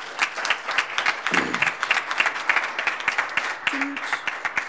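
Audience applauding: a dense patter of many hands clapping, thinning out near the end.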